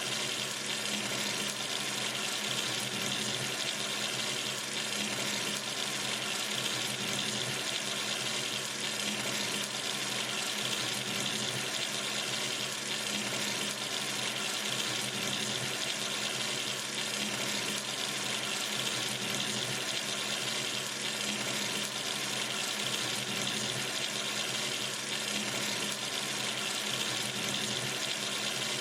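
Sink tap running steadily, water splashing into the basin with an even hiss.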